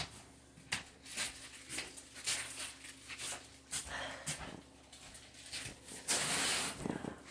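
Scattered light clicks and knocks with a longer rustle about six seconds in, from the plastic-wrapped acrylic arms of an arc 'spider' floor lamp being handled.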